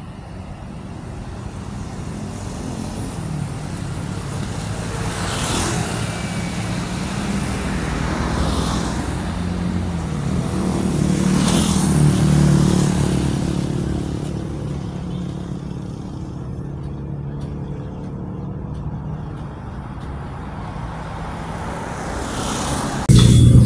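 A vehicle's engine running while driving through road traffic, its pitch rising for a few seconds midway, with other vehicles passing by. Music starts abruptly near the end.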